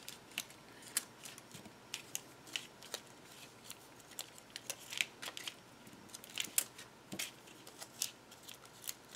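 Paper being handled at close range: adhesive dots peeled off their backing liner and pressed onto cardstock tabs, giving light, irregular clicks and crinkles.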